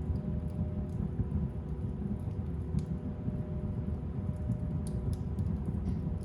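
Fire burning in a fireplace: a steady low rumble of flames with scattered sharp crackles and pops.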